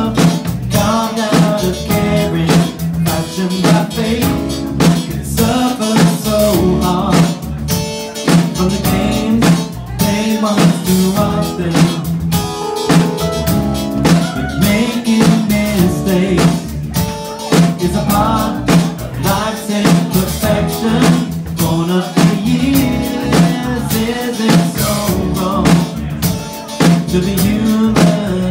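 Live band playing a funk-pop song on drum kit, electric bass guitar and keyboards.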